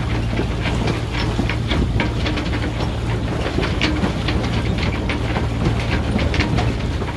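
Sailing yacht under way: a steady low engine drone with water splashing and slapping against the hull in quick, irregular strokes.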